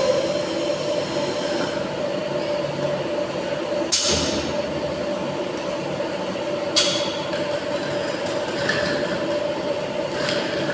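Tilting-type air-jet bottle washing machine running with a steady hum, with two short blasts of compressed air about four seconds in and again near seven seconds.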